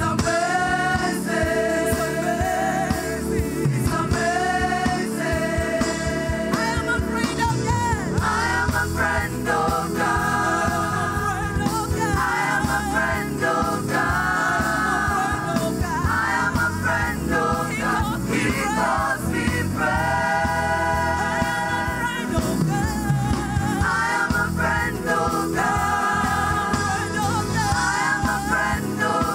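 Praise and worship music: voices singing a gospel song over instrumental accompaniment with a steady beat.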